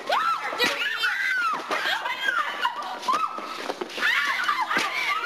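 Several voices shouting and laughing excitedly over one another, with no clear words.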